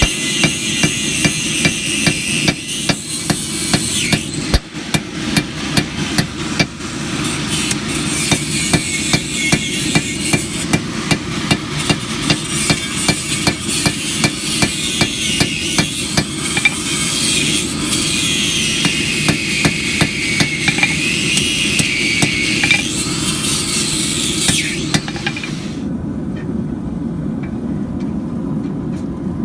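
Hand hammer forging coil-spring steel on an anvil: a steady run of blows about two a second that stops about 25 seconds in, over a steady low rushing noise.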